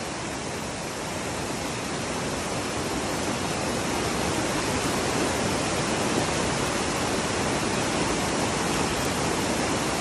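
A swollen creek running high and fast: its muddy whitewater makes a steady rushing noise, getting a little louder over the first few seconds.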